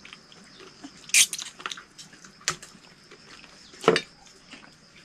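Mealtime sounds of people eating by hand: chewing and small clicks and clinks of metal bowls and plates, with a louder knock near the end as a metal bowl is set down on the wooden table.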